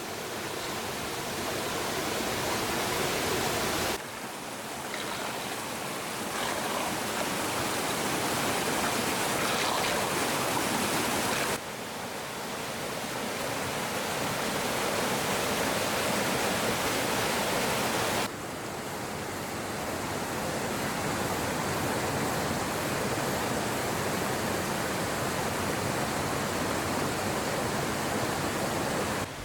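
Stream water rushing and splashing steadily, as over a small dam. The level drops abruptly three times.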